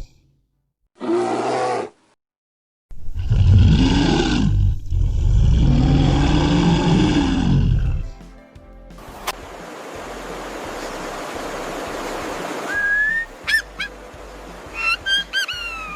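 Tiger roaring: a short call about a second in, then two long, deep roars that rise and fall in pitch. After them, a steady hiss with one sharp click, and a few high gliding chirps near the end.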